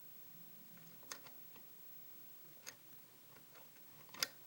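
Faint, sparse clicks from a lock pick and tension wrench working the pin stack of a custom pin-tumbler challenge lock: a few clicks a second or so apart, the loudest near the end, the sound of pins setting while the lock sits in a false set.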